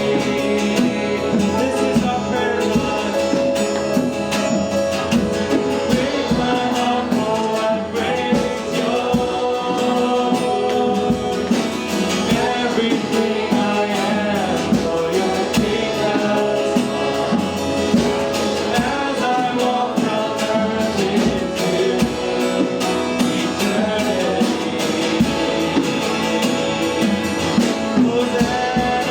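Church worship song: voices singing over a band with guitar and a steady percussion beat, playing without a break.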